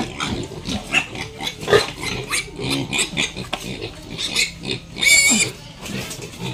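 Piglets grunting and oinking in short, rapid calls, with one loud high squeal about five seconds in.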